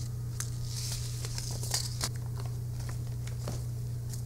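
Paper seed packets rustling and crinkling as they are handled and shuffled, with a few light taps, busiest in the first two seconds. A steady low electrical hum runs underneath.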